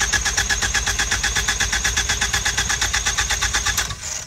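Ford Focus ST four-cylinder engine cranking on the starter motor with its spark plugs out, a rapid even chug-chug of the pistons with the starter's whine over it, cutting off about four seconds in. This is a compression test: the cylinder builds about 150 psi, so it is not the bad one.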